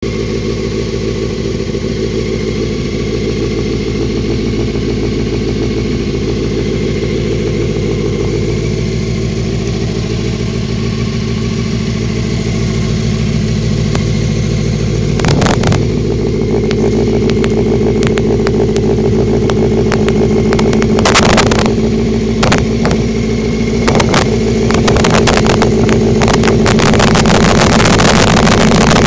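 1987 Honda Hurricane 600's inline-four engine running steadily at idle. About halfway through, gusts of wind on the microphone begin to cut in over it.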